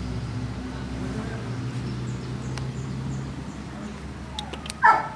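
A low engine hum runs steadily and fades after about three seconds; near the end a Boston Terrier gives a loud, short yip.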